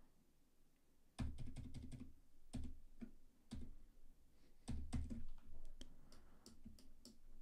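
Computer keyboard keys tapped in short quick runs of clicks, starting about a second in.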